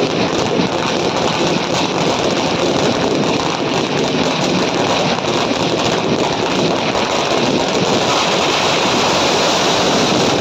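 Firecrackers packed into a burning Ravana effigy going off in a dense, steady crackle, the many small bangs running together into a continuous hiss.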